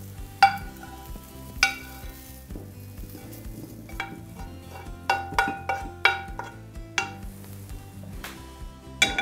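Metal spoon scraping and clinking against a granite-coated frying pan as cooked beef cubes are pushed out into a glass bowl. A few single clinks with short ringing, then a quick run of them in the middle.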